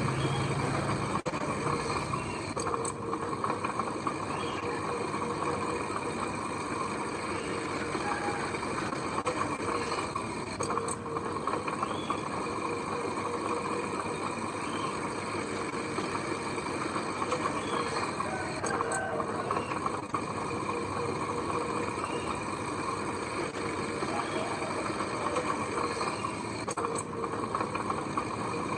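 Diesel engine of heavy earthmoving machinery running steadily, with no break or change in level.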